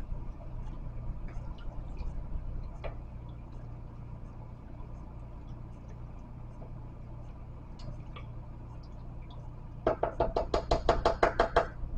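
A quick, even run of about a dozen knocks, some seven a second, lasting about two seconds near the end, over a steady low hum.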